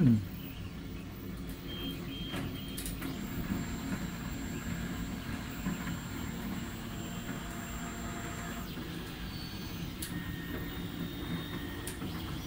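DeltaMaker delta 3D printer running mid-print: a steady low hum, with thin high whining tones from its motors that come in and stop every few seconds.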